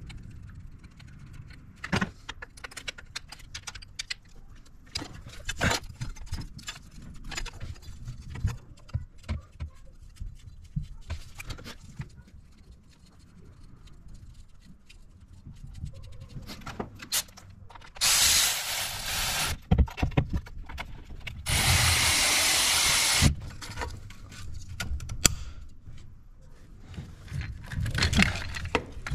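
Scattered clicks, clinks and knocks of hand tools and parts being handled around a diesel engine's valve cover and wiring harness. A little over halfway through come two loud hissing bursts, each about a second and a half long.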